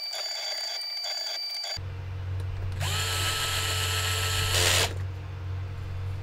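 Small electric screwdriver driving the motor-mount screws into the drone frame. It runs in two spells; the second is louder, winding up and running about two seconds before stopping.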